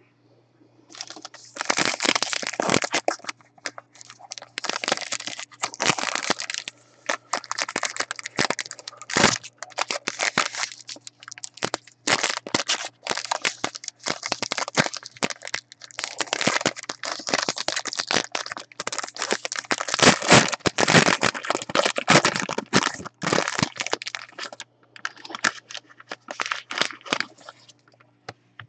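Gold foil wrapper of a trading-card pack being torn open and crumpled by hand: irregular crinkling and crackling that stops and starts.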